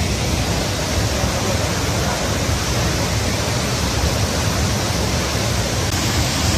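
A large waterfall in full flow: a loud, steady rush of falling water.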